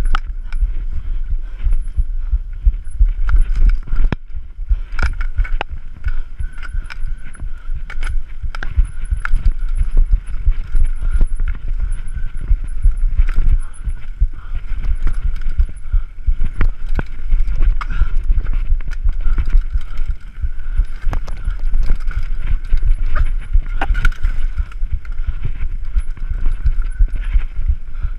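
Mountain bike ridden fast down rough forest singletrack: the bike rattles and knocks constantly over roots and rocks, over a low rumble from the tyres on dirt. A steady high whir runs underneath.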